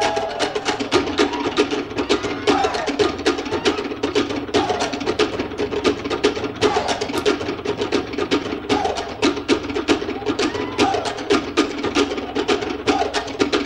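Cook Islands drum ensemble of wooden slit drums playing a fast, driving beat for an ura pau drum dance, with short calls from the performers about every two seconds.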